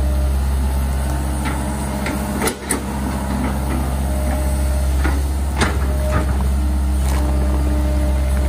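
Hitachi hydraulic excavator's diesel engine running steadily under working load while digging, with a few sharp knocks and clanks from the bucket and arm, the loudest about two and a half seconds in and again past the middle.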